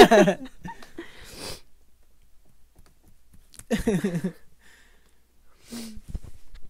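Quiet room with one short burst of a voice about four seconds in, and a few soft clicks near the end from a handheld lapel microphone.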